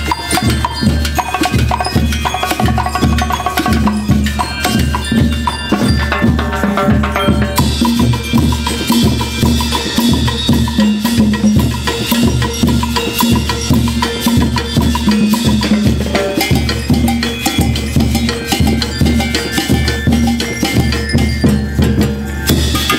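A school rhythm band (banda rítmica) playing a lively piece: drums and percussion keep a steady driving beat under a bright pitched melody. The band gets fuller and brighter about a third of the way in.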